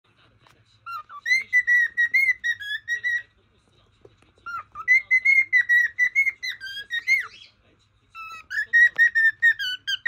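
Cockatiel whistling its song: three phrases of quick, repeated whistled notes, each lasting two to three seconds, with short pauses between.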